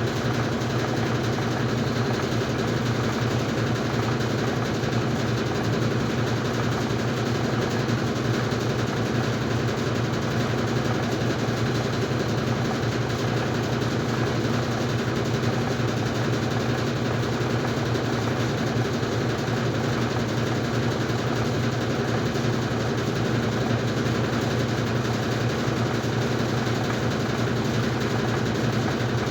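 Easy washing machine in its spin cycle, running with a steady low hum and rattle: the noise the machine makes when it spins.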